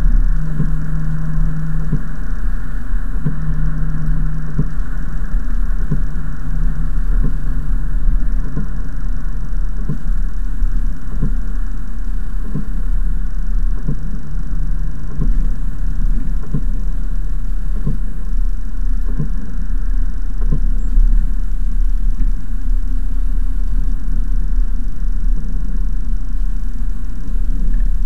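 Mercedes-Benz C-Class coupe driving at speed, heard from inside the cabin: a loud, steady low rumble of engine and road. A steady hum shows in the first few seconds, and light knocks recur about once a second through the middle.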